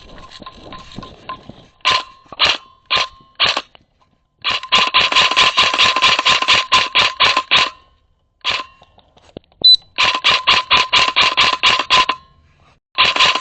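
Airsoft gun firing close by: four single shots about half a second apart, then long rapid full-auto bursts that stop and start again, with a steady whine under the bursts. Fainter clicking of more distant firing comes before the first shot.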